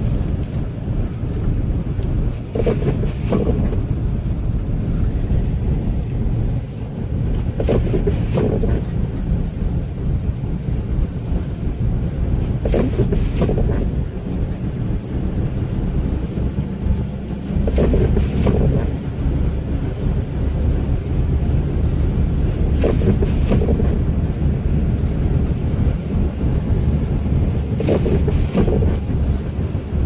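Steady low rumble of a vehicle driving on a snowy road in strong wind, with wind buffeting the microphone. About every five seconds there is a pair of short swishes, typical of windscreen wipers sweeping across and back.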